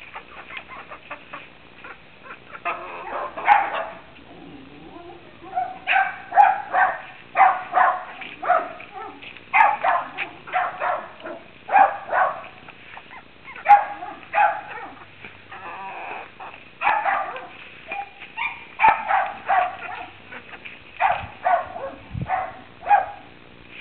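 Three-month-old chickens calling: short, pitched calls repeated in clusters, often one or two a second, starting a couple of seconds in and carrying on until near the end.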